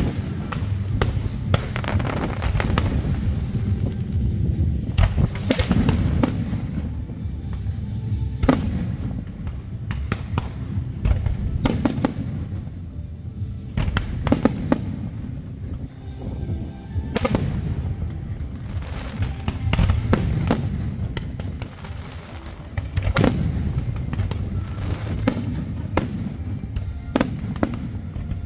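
Fireworks display: aerial shells bursting in repeated sharp bangs at irregular intervals over a continuous low rumble.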